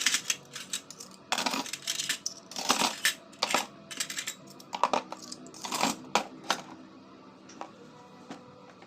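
Small hard objects being handled: a busy run of light clicks, clinks and rattles, thinning to a few scattered taps after about six and a half seconds.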